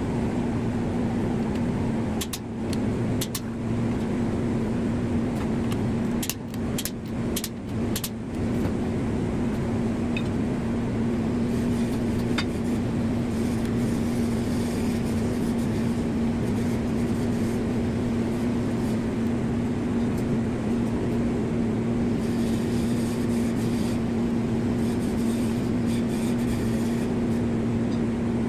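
Steady hum of running machinery with one strong, even tone. A handful of sharp metal clicks from the wrench work on the engine's connecting-rod bolts sound between about two and eight seconds in.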